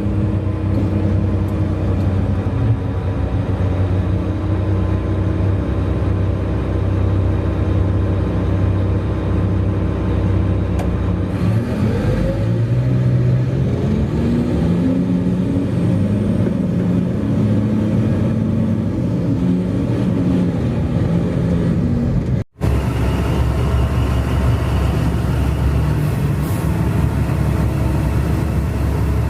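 Heavy mining-machine diesel engines, a Liebherr R 9200 excavator working with a Komatsu HD785 haul truck, running loud and steady. Engine pitch glides up and down about halfway through as the engine revs under load. The sound cuts out for an instant about three-quarters of the way in.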